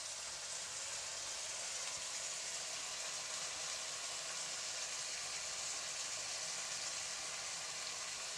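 Boneless chicken cubes sizzling steadily in hot oil in a wok.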